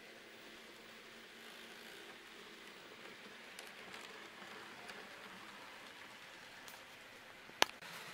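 Faint steady hiss with light rattling from an N-scale model Renfe 597 TER railcar running along its track, with a few light clicks and one sharp click near the end.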